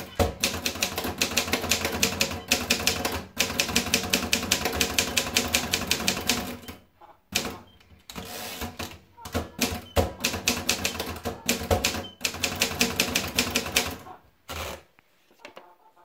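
Continental 350 portable manual typewriter being typed on: quick runs of key strikes, typebars hitting the platen. The runs break off twice, about seven and twelve seconds in, as the carriage is returned for the next line. The typing stops about a second before the end.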